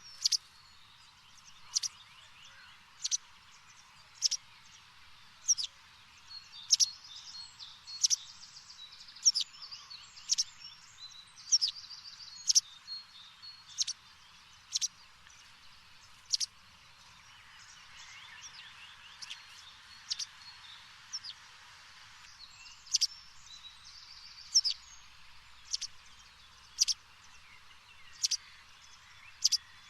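Birds chirping: one bird repeats a short, sharp, high chirp about once a second, with other birds' twittering song in between.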